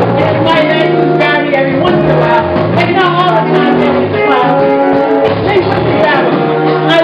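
Live band playing with a woman singing lead into a microphone, over steady bass notes and regular cymbal strokes.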